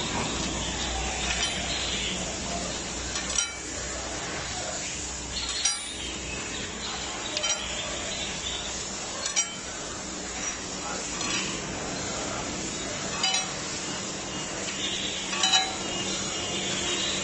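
Steel balls of a slewing ring bearing clinking against the steel rings as they are worked around the raceway during assembly: a sharp metallic clink about every two seconds over a steady background hum.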